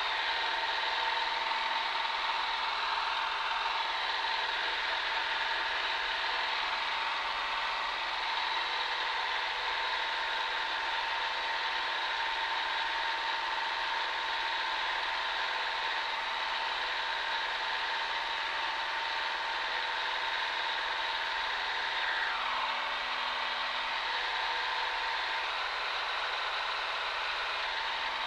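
Cessna 140A's piston engine and propeller droning steadily in the cockpit during the climb-out after takeoff, with a steady high whine over the drone.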